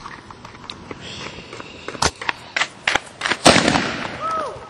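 Fireworks going off: a quick, irregular run of sharp cracks and pops beginning about two seconds in, the loudest crack about three and a half seconds in.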